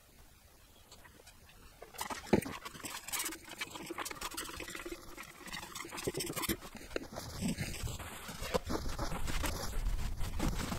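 Trigger spray bottle spritzing cleaner onto a car's rubber floor mat several times, then a rag scrubbing and wiping the mat. The sounds start about two seconds in.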